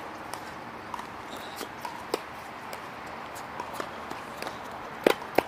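Tennis ball and racket impacts: scattered light taps, then two sharp pops about a third of a second apart near the end.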